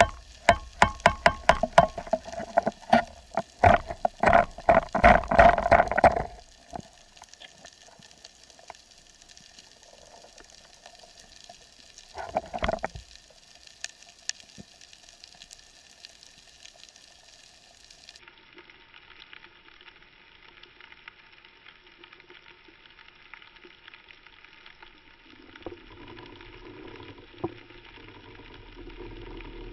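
Underwater sound picked up through an action-camera housing: a crackling hiss, with a rapid run of sharp clicks and knocks in the first six seconds and another short burst about twelve seconds in. A low rumble comes up near the end.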